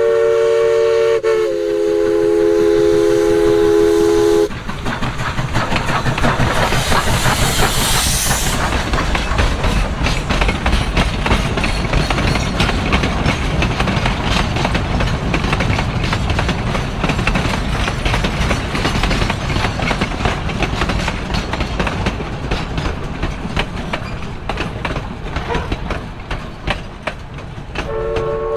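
East Broad Top narrow-gauge steam locomotive blowing its whistle, several tones at once, for about four seconds, dropping slightly in pitch partway through. The train then passes close by: a brief high hiss, then a long rhythmic clatter of hopper cars and coaches rolling over the rail joints, thinning slowly toward the end.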